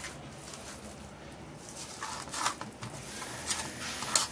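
Fish pieces being mixed with their masala and garlic marinade in a bowl: quiet at first, then from about halfway a few short wet squishes and knocks, the loudest a sharp knock near the end.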